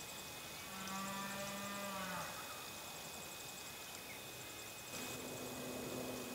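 A low, drawn-out animal call, about a second and a half long, dropping in pitch as it ends. A second steady low call starts near the end. Faint insect ticking runs underneath.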